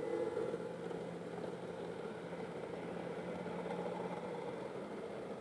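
Model SD70ACE freight train running past: a steady mechanical hum with rolling wheel noise, swelling up just at the start and easing off just after the end.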